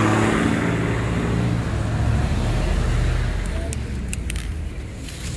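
A motor vehicle engine running close by, a steady low hum that fades over a few seconds, with street noise and a few light clicks about four seconds in.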